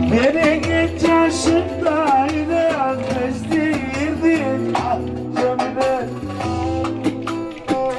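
Live, amplified Turkish folk dance music: bağlama (saz) and keyboard play over a regular drum beat. A wavering, ornamented melody line is heard in the first half.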